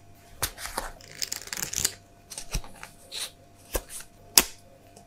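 A stack of card tags and their clear plastic bag being handled by gloved hands. There is rustling a little over a second in, and several sharp clicks and taps, the loudest about four and a half seconds in.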